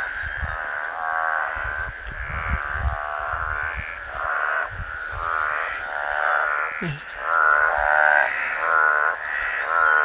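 A breeding chorus of mountain treefrogs (Hyla): many males calling at once in overlapping short, buzzy calls, one after another, with a low irregular rumble underneath.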